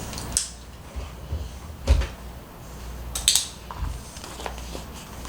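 Kitchen handling noises while breakfast is set out at a child's chair: a few separate knocks and clatters. A dull thump comes about two seconds in and a sharp clatter just after three seconds.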